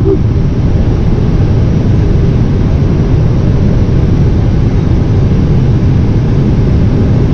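Airbus A320 flight-deck noise on short final approach: a steady, loud low-pitched rush of airflow and engines with no distinct events.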